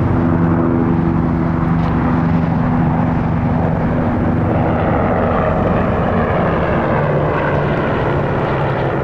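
Steady drone of a large engine with several low tones held together, the tones shifting lower about halfway through.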